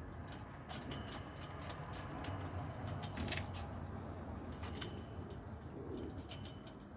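Scattered light clicks and taps from hands working on a windshield resting on its stand, over a low steady rumble.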